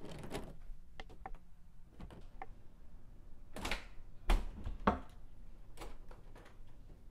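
Irregular knocks and clicks, a few light ones and then the heaviest thuds about four to five seconds in.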